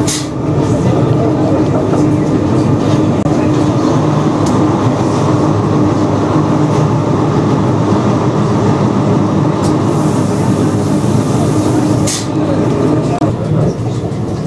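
Electric rack-railway railcar running along the track, heard from inside the cab: a steady running noise with a hum from the drive and a few sharp clicks.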